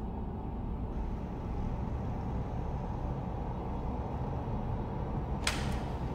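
A steady low rumble, with one sharp click near the end as a door is pushed open.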